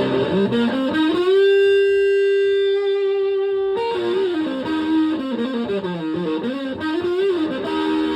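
Stratocaster electric guitar through a Tone Bender MK1.5-style fuzz pedal and a Fender Twin Reverb-style amp. It slides up into one long sustained fuzzed note, then plays a run of single notes with bends.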